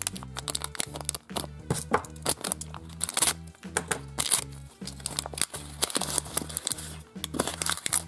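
Plastic wrapping of an LOL Surprise ball's compartments crinkling and tearing in many short crackles as they are opened, over background music with a steady bass line.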